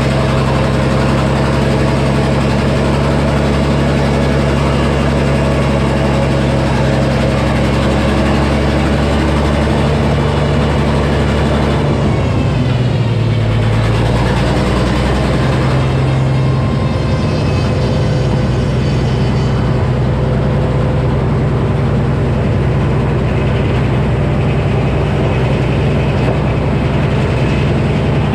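Minneapolis Moline HEB six-cylinder engine powering a Frick sawmill, running steadily at low speed. About twelve seconds in, its note shifts and a higher whine comes in for a few seconds.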